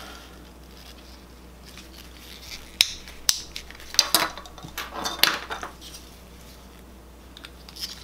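Anderson power connectors handled in gloved hands: a cluster of about six sharp plastic-and-metal clicks and small rattles between about three and five and a half seconds in, as contacts are reinserted into the housings and the connectors are fitted together.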